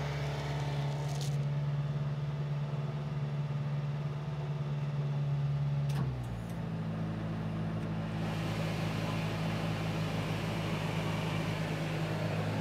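Subaru Sambar's 660 cc four-cylinder engine idling steadily, cold. About six seconds in a click comes and the engine note changes as the air conditioning is switched on, and a couple of seconds later a steady hiss of fans joins.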